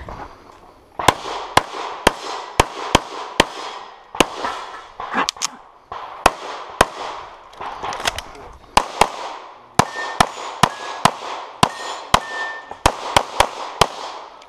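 Semi-automatic pistol fired in rapid strings, many shots in quick pairs, with short gaps between strings, about thirty shots in all.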